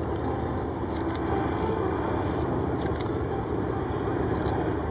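Piston engines of Fieseler Fi 156 Storch-type light aircraft droning steadily as they fly past overhead in formation.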